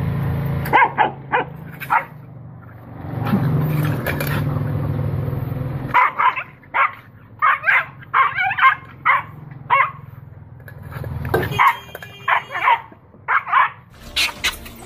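A dog barking at a monkey in short sharp barks and yips, some single and some in quick runs of several, over a low steady rumble that comes and goes.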